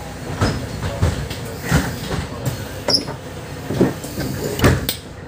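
Mercedes-Benz Citaro O530 city bus under way, heard from inside the cabin: a steady running rumble with a series of irregular knocks and rattles, the loudest near the end.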